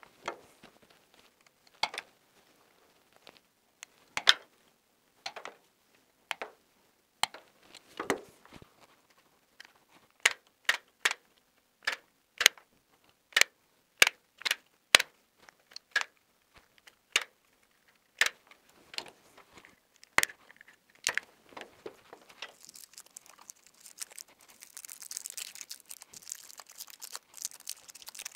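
Wire-stripping pliers stripping insulation off the cores of electrical installation cable, a sharp click with each strip, about one a second. Some 22 seconds in the clicks give way to a steady crinkly rustling as the wires are handled and bent.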